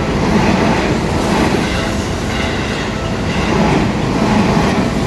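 Seibu Ikebukuro Line train passing close by at a level crossing: a loud, steady rumble of wheels on rails with clickety-clack from the rail joints.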